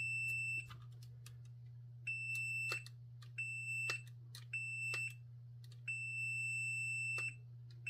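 Multimeter continuity beeper sounding a steady high tone in five irregular on-off beeps as the probes make and break contact on the microphone wiring, each beep signalling continuity. There is a steady low hum underneath.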